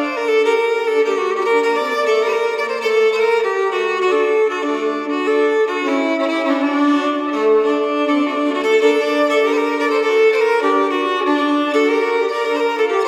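Background music: a violin playing a sustained melody, its notes moving step by step, with no forge or hammer sounds audible.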